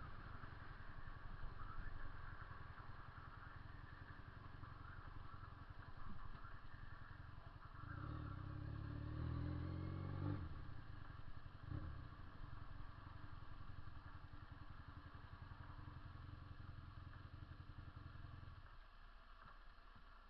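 Honda CB 400 II motorcycle's parallel-twin engine running with a steady low exhaust note. It swells louder for a couple of seconds about eight seconds in. Its low rumble falls away near the end.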